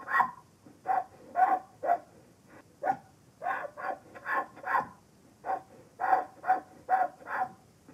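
A donkey's breathing: short, sharp breaths in quick runs of three to five at about two a second, with brief pauses between the runs.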